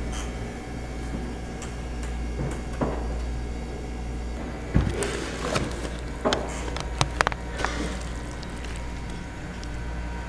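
Food-stall kitchen work: scattered knocks and sharp clicks of things being handled, bunched together in the second half, over a steady low hum.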